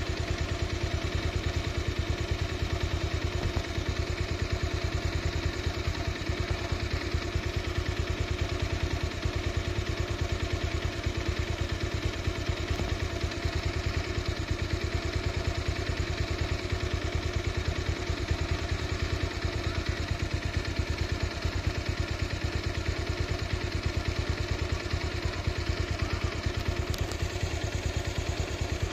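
An engine running steadily at one constant speed with a fast, even throb that does not change.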